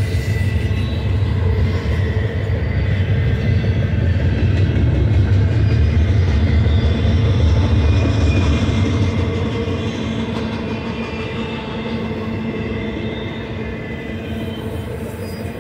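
Double-stack intermodal freight train cars rolling past on steel rails: a steady, heavy rumble of wheels on track that peaks midway and slowly fades over the last third.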